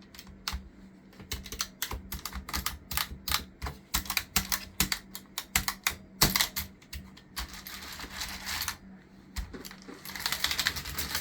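Computer keyboard keys being pressed rapidly and irregularly, a dense run of sharp clicks, with two stretches of rustling hiss, about six seconds in and again near the end.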